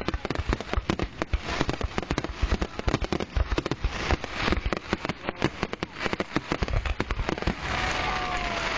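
Fireworks finale barrage: a rapid, unbroken run of overlapping bangs and crackling shells, many reports a second.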